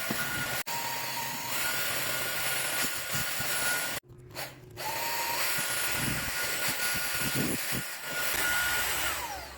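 Cordless stick vacuum running with a steady high whine over a rushing hiss. It briefly cuts out about four seconds in, and near the end the motor winds down with a falling whine as it is switched off.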